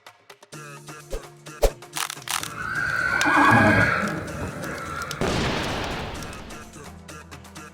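Intro background music with a loud animal cry, a wavering, falling whinny, at its loudest about three and a half seconds in, followed by a noisy whoosh that fades away.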